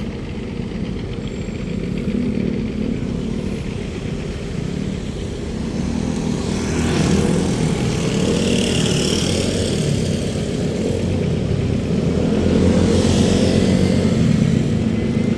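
Street traffic: motor vehicle engines running steadily, with vehicles passing close by about seven seconds in and again about thirteen seconds in.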